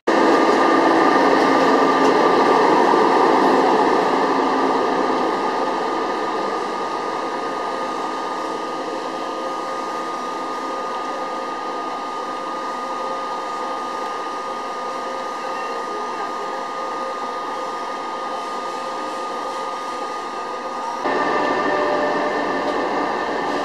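ÖBB Railjet train hauled by a Siemens Taurus class 1116 electric locomotive running into the platform: a steady rushing of wheels and traction equipment with a few held tones. It is loudest over the first few seconds, settles lower, then grows louder again about 21 seconds in as the locomotive draws close.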